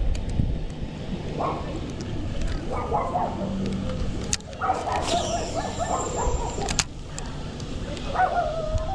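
Dogs barking and yelping in several bouts, the longest lasting about two seconds in the middle, over a low steady rumble: the dogs are worked up.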